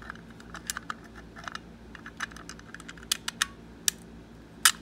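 Bit key being turned and jiggled in the keyhole of an antique surface-mount rim lock: irregular metallic clicks and rattles as the bit catches on the lock's lever, the loudest click near the end. The key still turns stiffly, the sign that the bit's cut is not yet deep enough.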